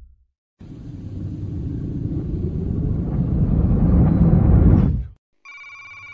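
A rumbling noise swell builds steadily louder for about four seconds, then cuts off abruptly. After a short gap, a steady electronic ringing tone pattern begins.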